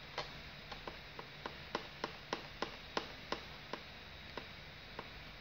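About fourteen light clicks at uneven intervals, quickest near the middle, as the control sticks of a Taranis radio transmitter are flicked to step through an FPV camera's on-screen menu.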